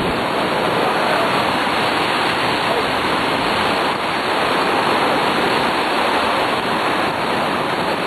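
Steady, loud rushing noise with no clear tone or rhythm.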